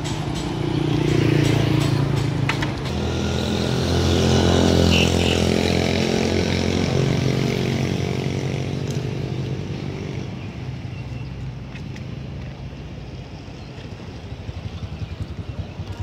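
Motor scooter engine running steadily, loudest a few seconds in, then fading away.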